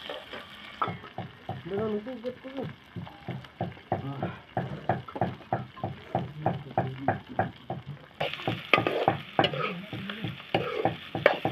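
Metal spatula scraping and knocking against a metal kadai in quick, regular strokes as pork pieces and onion are stirred and fried over a wood fire, with a low sizzle underneath.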